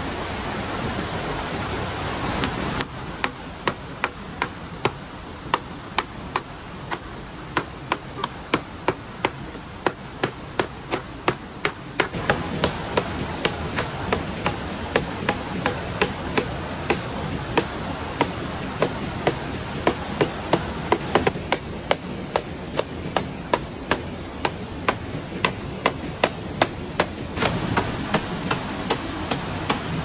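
Rapid, evenly spaced chopping strikes, about two a second, begin about three seconds in over a steady hiss of water.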